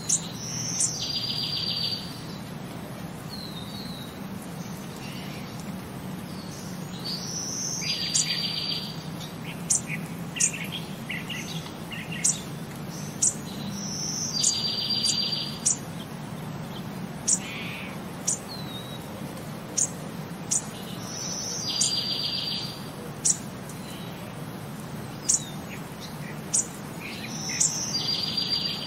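Birdsong ambience on a loop: a phrase of one high note and then a rapid buzzy trill, repeating about every seven seconds, with short sharp high chirps in between. A low steady hum runs underneath.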